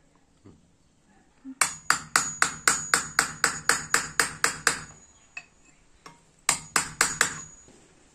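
Hammer striking steel during knife making: a quick even run of about fifteen sharp metallic blows, roughly four a second, then after a pause a shorter run of five.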